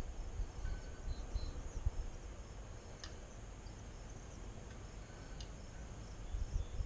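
Steady low wind rumble on the microphone in a breeze, with faint insects chirping and a few light ticks.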